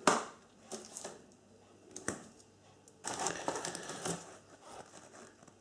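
Hands rummaging in a cardboard box of packaged fireworks: a knock at the start, a few light clicks and taps, then about a second and a half of rustling of cardboard and plastic wrapping.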